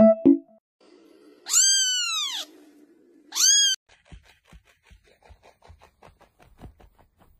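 A cat meows twice, first a long call that rises and falls in pitch, then a shorter one, over a low rough rumble. After that come faint quick taps, about four a second.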